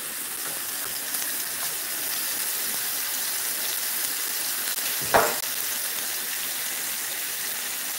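Meatballs of ground beef and Italian sausage frying in a skillet, a steady sizzle. A single short knock sounds about five seconds in.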